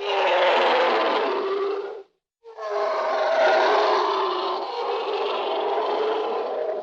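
Vintage stock sound-effect recording of an elephant calling twice. The first call lasts about two seconds, and after a short silence a longer one runs about four seconds.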